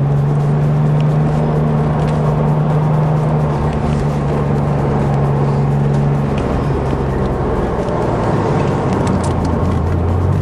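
Car engine heard from inside the cabin during an autocross run. It holds steady revs, eases off about six seconds in, then builds again near the end.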